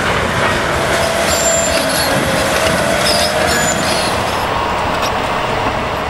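Large Komatsu crawler bulldozer working over rock: diesel engine running under a steady clatter of steel tracks, with brief high squeals from the undercarriage.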